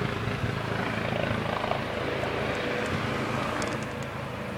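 Police helicopter hovering close overhead: a steady, very loud rotor beat with engine noise.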